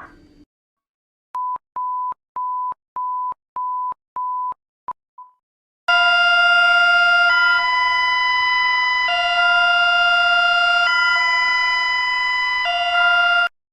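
Electronic emergency alert alarm: a string of about seven short, same-pitched beeps, roughly two a second, fading out. Then a loud two-tone alarm that alternates between a high and a low chord about every two seconds and cuts off sharply.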